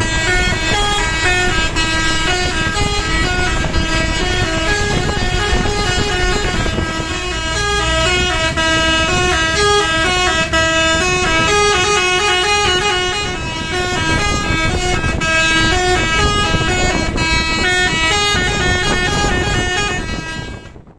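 Indonesian 'telolet basuri' bus horn playing a melody of stepped notes, over a low rumble of engines and traffic. The sound cuts off abruptly at the end.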